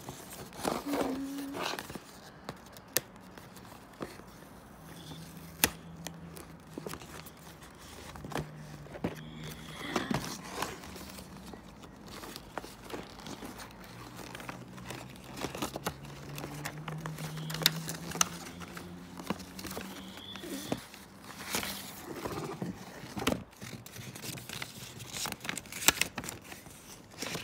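Card and paper packaging being handled and torn open: crinkling, tearing and scattered sharp clicks as a coin's envelope is unsealed. A faint low hum runs underneath through the middle part.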